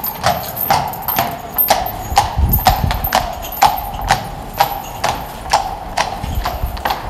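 A carriage horse's hooves clip-clopping on a stone path at a steady walk, about two hoofbeats a second, as the horse-drawn carriage passes close. A low rumble joins about two seconds in.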